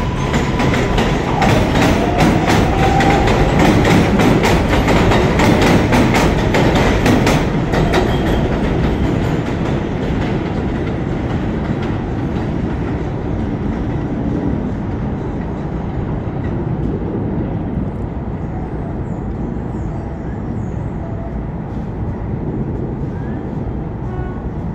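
R142A subway train accelerating away on elevated track: wheels clacking rapidly over rail joints, with a motor whine rising in pitch early on. The clatter dies away after about eight seconds as the train pulls off, leaving a fading rumble.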